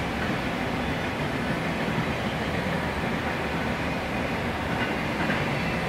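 Autorack cars of a freight train rolling past: a steady rumble of steel wheels on the rails.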